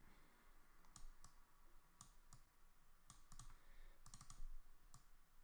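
Faint computer mouse clicks, about a dozen scattered through, some in quick pairs and a short cluster about four seconds in, as on-screen elements are selected and dragged.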